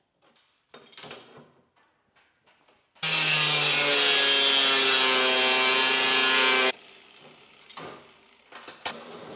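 Angle grinder cutting steel stock for about three and a half seconds, starting about three seconds in, its pitch sagging a little under load, then cutting off suddenly. A few light metal clicks from clamping come before it.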